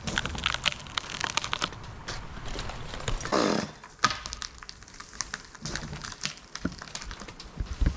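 Wood and bark of a rigged tree limb crackling and snapping as the cut hinge tears and twists under the rope's pull, with a louder drawn-out creak about three and a half seconds in.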